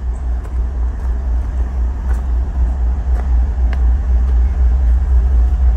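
Diesel-electric locomotive idling, a steady low rumble with faint crunches on the track ballast.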